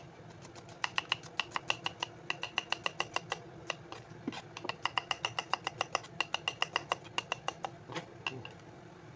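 Knife slicing onions on a wooden chopping board: rapid, even chopping strokes about five or six a second, in runs broken by short pauses near the start, about four seconds in and near the end.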